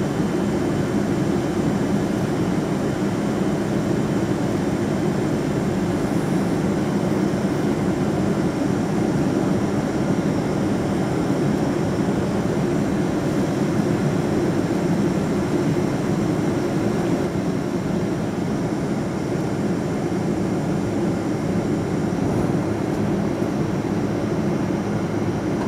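Steady cabin noise inside a Boeing 777-200ER taxiing, its engines running at low power: a constant low hum and rumble that does not change.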